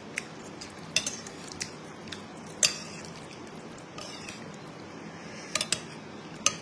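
A spoon and chopsticks clink against a bowl of soup as food is stirred and lifted: a scattered string of short, sharp clinks, loudest about two and a half seconds in and again near the end, over a steady low background hiss.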